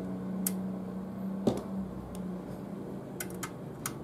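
Small metal screw and screwdriver clicking against the sheet-metal case of a Hikvision DVR as a hard-disk screw is set into its hole: a few sharp ticks, the loudest knock about a second and a half in and a quick cluster near the end, over a steady low hum.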